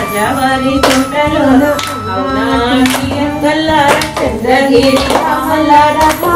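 A song with singing over instrumental accompaniment, and a group of people clapping their hands in time, about once a second.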